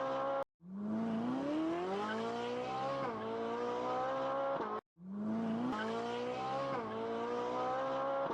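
Racing-car engine revving, its pitch climbing and dropping back at each gear change. It cuts out twice briefly and restarts with the same sequence each time, like a looped sound effect.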